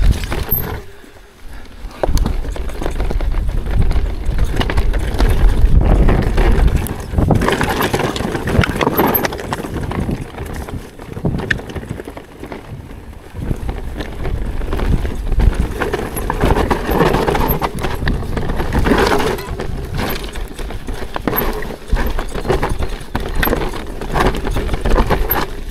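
Mountain bike running down a rocky trail, recorded on the bike rider's action camera: tyres, frame and drivetrain rattle and clatter constantly over rocks. The rattle comes in after a short lull about two seconds in, over a heavy low rumble.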